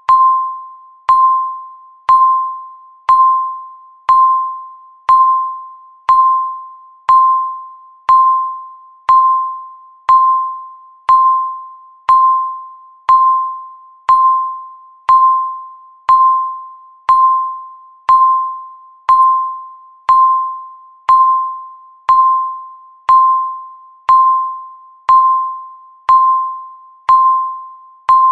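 Countdown timer beeping once a second: a single electronic chime-like tone, each beep struck sharply and fading away before the next.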